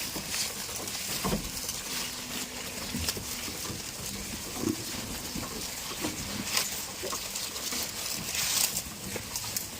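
Goats close by: scattered rustling and clicking with a few short, low snorts or grunts.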